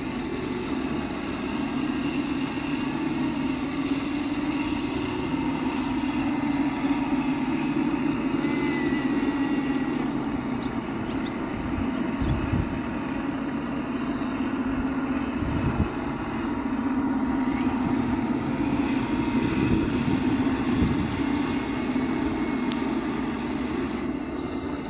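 A motor running steadily, a continuous low drone that holds its pitch, with a few brief low bumps around the middle.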